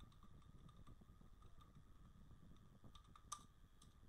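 Faint keystrokes on a computer keyboard, a few scattered light clicks with one sharper click a little past three seconds in, over a faint steady electrical whine.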